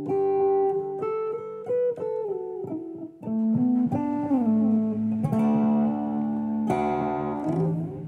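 Epiphone Dot semi-hollow electric guitar played as a short lead phrase: picked single notes, some sliding in pitch, a long held note in the middle, then a strummed chord near the end that rings on.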